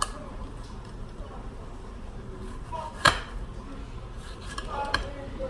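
Kitchen knife slicing tomatoes on a cutting board, with one sharp knock of the blade on the board about three seconds in and a lighter one near the end.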